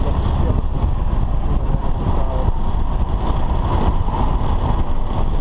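Cabin noise of a BMW F10 5 Series driven at speed on a race circuit: engine, tyre and wind noise blended into a loud, steady low rumble.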